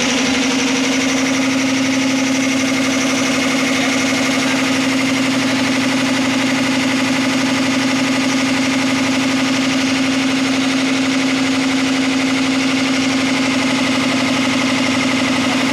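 A 5 hp belt-driven piston air compressor running steadily, its electric motor and pump giving a fast, even chugging over a steady hum. It is pumping up the receiver tank.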